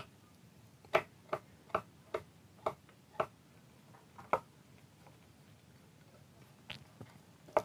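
Small screwdriver clicking against the screws of a solid-metal pickup surround as they are turned out: about ten sharp, irregular metallic clicks, several close together early on, then a few more near the end, the last one the loudest.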